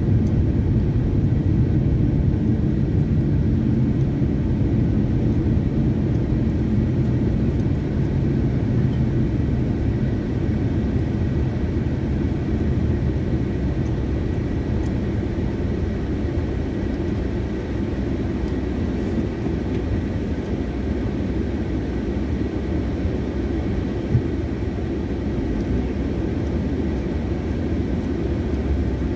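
Steady low rumble of a car on the move, heard from inside the cabin: tyre and engine noise that eases a little as the car slows into queuing traffic. A single short click comes a few seconds before the end.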